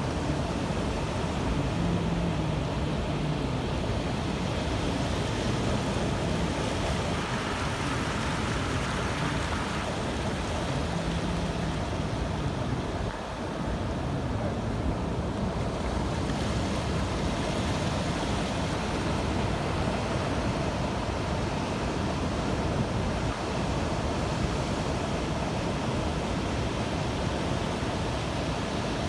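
Steady rush of sea waves and wind.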